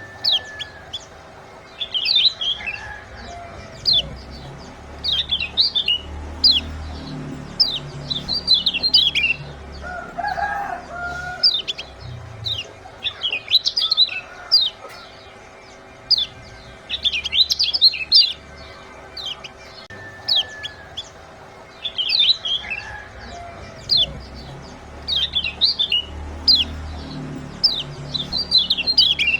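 Small songbird's sharp 'ciak' chirps, short and falling in pitch, given in quick clusters again and again in a looped lure recording, with a lower clucking call about ten seconds in.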